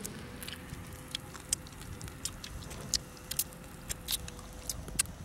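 Irregular small sharp clicks and crackles, a few every second, over a faint steady hum.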